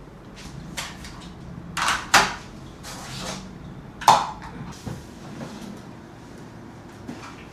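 Kitchen handling noises: a few sharp knocks and clatters of cupboard doors or dishware being moved, the loudest a little after two seconds and about four seconds in.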